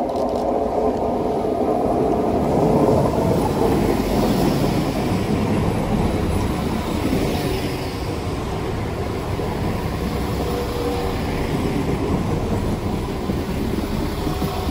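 West Midlands Railway diesel multiple unit passing at close range: wheels rumbling on the rails under a loud, steady running noise that peaks about three seconds in and carries on as the coaches go by.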